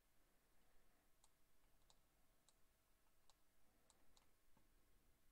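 Near silence broken by about seven faint, sharp computer-mouse clicks, spaced irregularly, from about a second in until shortly before the end.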